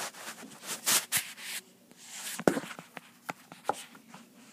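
Handling noise around a cardboard shipping box: short rustles and scrapes about a second in, then scattered sharp clicks and taps, the loudest about halfway through, dying down near the end.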